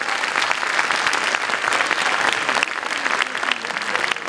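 Audience applauding: many hands clapping densely and steadily.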